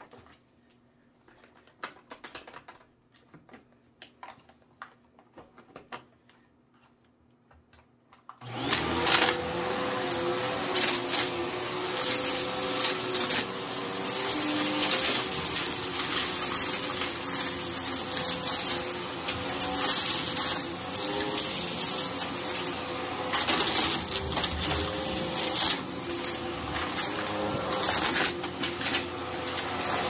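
A few faint taps, then about eight seconds in an upright vacuum cleaner switches on and runs steadily with a whine. Grit and debris rattle up through it as it moves over a dirty rug.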